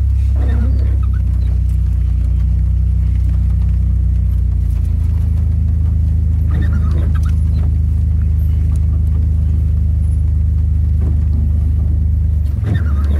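AWD minivan driving slowly in low gear over a rough dirt track, heard from inside the cabin as a steady low drone whose pitch steps about five seconds in and dips near the end. A few brief sounds rise above it, about half a second in, around seven seconds and near the end.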